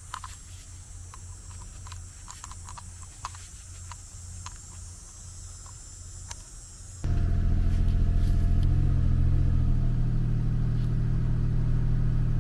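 A 2003 Toyota Sienna's 3.0-litre V6 engine running. For the first seven seconds there is only a faint low hum with a steady high whine and a few light clicks; then the sound switches abruptly to a much louder, closer, steady engine run.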